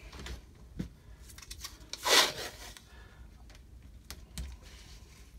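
Hands pressing and smoothing blue painter's tape along the edges of a painting panel: light taps and rubbing, with one short, louder scratchy rustle about two seconds in.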